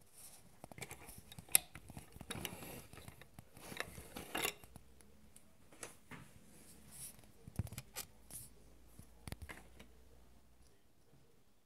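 Faint, scattered handling noise: light clicks, taps and rustles, with one sharp click about a second and a half in and a denser run of rustling over the next few seconds, thinning out toward the end.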